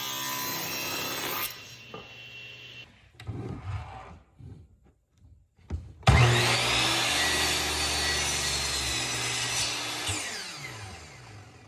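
Stationary woodworking power machine milling walnut. It runs and stops early on, a few knocks follow as the board is handled, and about six seconds in it starts abruptly. It then runs steadily and winds down with falling pitch near the end.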